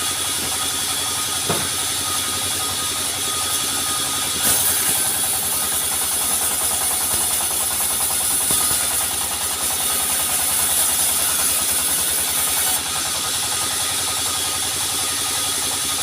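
Sawmill machinery running steadily, with a sharper high hiss joining about four and a half seconds in and dropping away near thirteen seconds.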